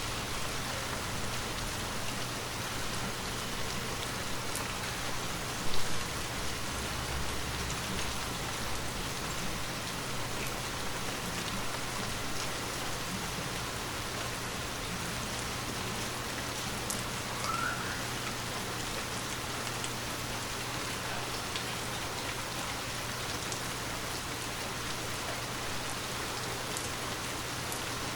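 Steady rain falling on a surface, a continuous even patter with individual drops ticking through it. One brief, louder sound stands out about six seconds in.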